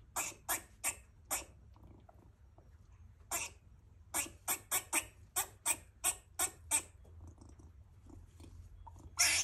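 Female gray squirrel in heat giving short, harsh barking calls in bouts: four quick ones, a single one, a fast run of about nine, then a longer one near the end.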